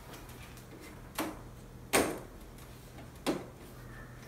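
Three sharp clicks about a second apart as the snap-in clips along the edge of a 60-inch Samsung LED TV's panel frame are pried loose by hand. The middle one is the loudest.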